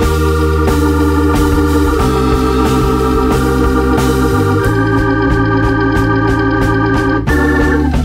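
Background music: held chords over a steady bass line, changing about every two seconds, with a steady beat underneath.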